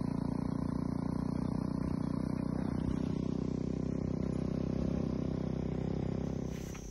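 A motorcycle engine running steadily under way, a constant low drone that cuts off shortly before the end.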